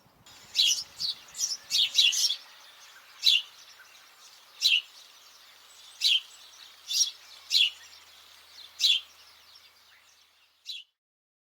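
House sparrow chirping: a series of short, sharp chirps, quick at first, then about one a second, over a faint outdoor hiss.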